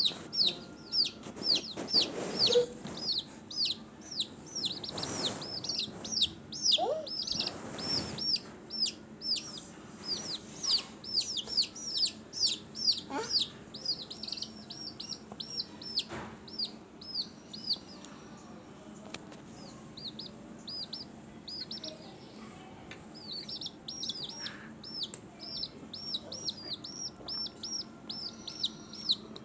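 Birds chirping: a long run of high, short downward-sliding chirps repeated a few times a second, thinning to a lull partway through before picking up again.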